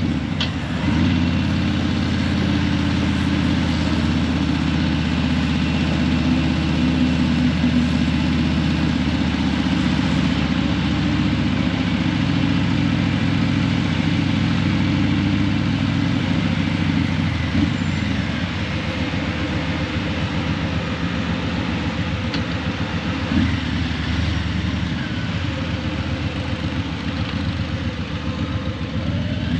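Harley-Davidson Breakout 117's Milwaukee-Eight 117 V-twin running steadily at low revs through Vance & Hines Eliminator 300 slip-on mufflers.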